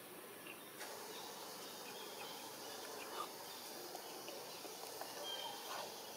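Forest ambience: a faint, steady hiss of insects, with a few short, faint chirps.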